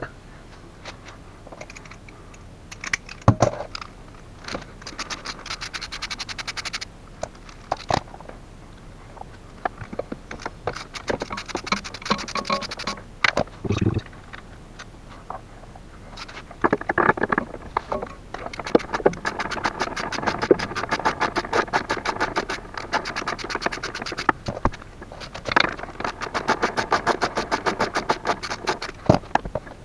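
Hand ratchet wrench clicking in quick runs of a few seconds each as nuts are spun off a car gearbox cover's studs, with a few single metal knocks in between.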